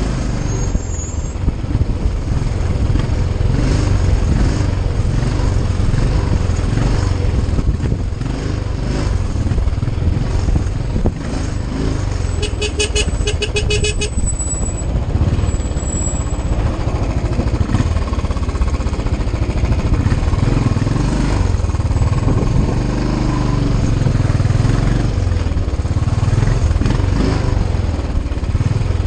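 Motorcycle engine running steadily while riding in traffic, a low rumble throughout. About halfway through, a quick series of short beeps sounds for a second or two, like a vehicle horn tooting.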